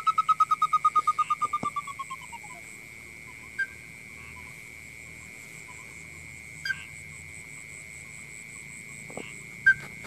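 A bird-call lure sounded to draw birds into a mist net: a fast pulsed whistling trill of about eight pulses a second that slows, drops a little in pitch and fades out about two and a half seconds in. Under it runs a steady high-pitched tone, with a few short clicks later on.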